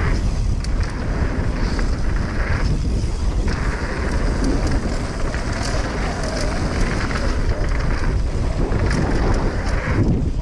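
Wind buffeting an action camera's microphone on a fast mountain-bike descent, with the tyres rolling and crunching over a dry dirt-and-gravel trail and the bike rattling over bumps.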